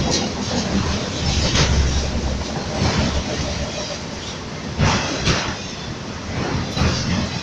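Freight train cars rolling past with a steady rumble, the wheels clacking sharply over rail joints every second or two.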